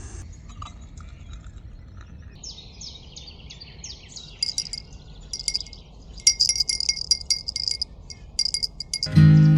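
Small metal bell jingling in quick, irregular bursts of sharp strikes, faint at first and busier from about four seconds in. Strummed acoustic guitar music comes in near the end.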